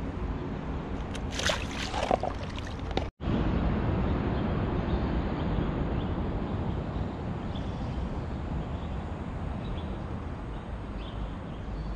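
A few splashes and handling knocks at the water's edge in the first seconds. After a brief dropout, a steady low rumble and hiss follows under a highway bridge: traffic noise and river flow mixed, with faint scattered ticks.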